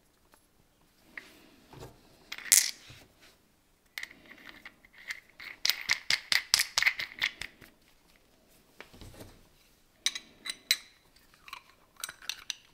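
Small machined metal parts handled and fitted together by hand: scattered clicks and metal clinks, a sharp clink about two and a half seconds in, and a dense run of rapid clicks in the middle.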